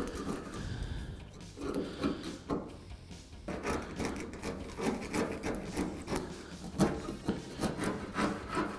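Flat-blade screwdriver scraping bubbled paint and rust scale off the steel side of a truck bed at the wheel arch, in short, irregular strokes.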